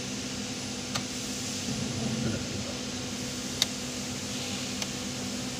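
Steady low hum and hiss with a few short, sharp clicks, the loudest about three and a half seconds in: circuit breakers in a slitting machine's electrical cabinet being switched by hand.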